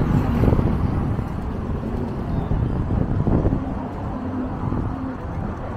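City street ambience: a steady low rumble of road traffic, swelling a little near the start and again about three seconds in.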